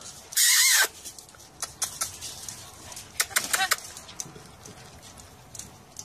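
A pet parrot gives one loud, harsh screech, about half a second long, shortly after the start. Scattered soft clicks and rustles from the bird follow.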